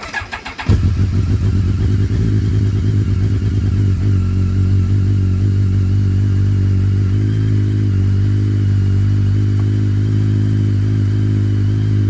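BMW K1200S inline-four engine turned over by the starter, catching under a second in and then idling steadily, with the rattling noise that is the subject of the recording.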